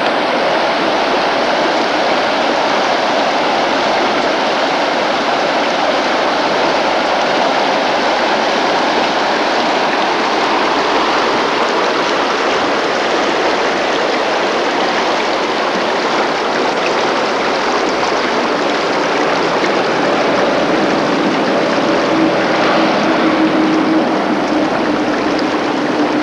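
Muddy, fast-flowing river rushing over rocks and shallow rapids: a steady, loud rush of water.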